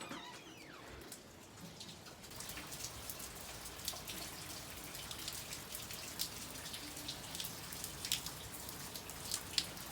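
Rain falling, with many separate drops ticking sharply close by; the drop hits thicken and grow louder about two seconds in.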